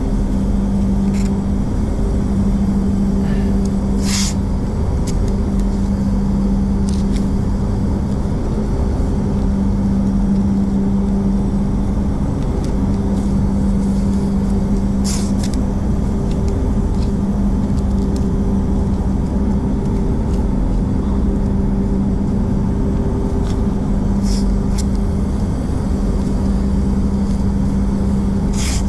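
Spray booth ventilation fans running steadily: a loud, even hum with a constant low tone. A few brief crackles sound over it, about 4, 15 and 24 seconds in and again at the end.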